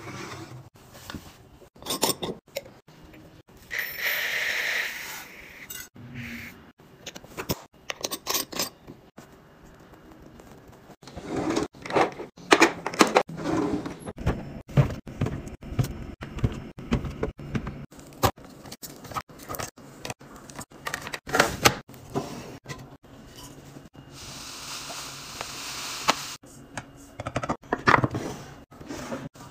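Containers, lids and packages being handled and set down during a restock: many short clinks, taps and knocks, with two longer rustling or pouring stretches, one about four seconds in and one near the end.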